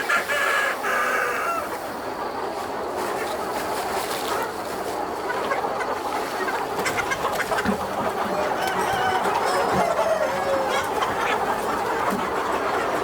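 A large flock of free-range native chickens clucking together in a constant busy chatter. A rooster crows at the start and again, with a falling note, partway through.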